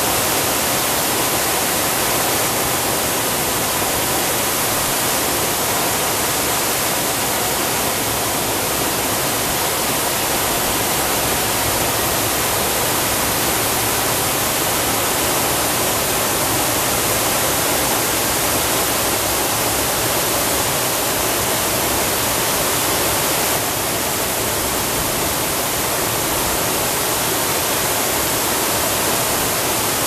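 Water pouring over a low dam in a wide, steady rush, with a slight dip in level a little over twenty seconds in.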